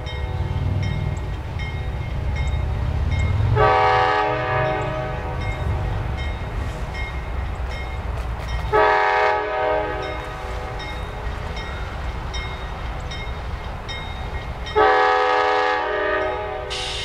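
CSX locomotive air horn sounding three separate blasts, each a chord of several steady tones lasting one to two seconds, over the low rumble of the passing train.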